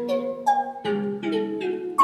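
Background music: a melody of short pitched notes that start sharply and fade quickly, a few to the second.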